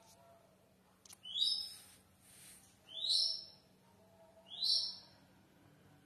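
A bird calling: three short chirps, each rising in pitch, about a second and a half apart.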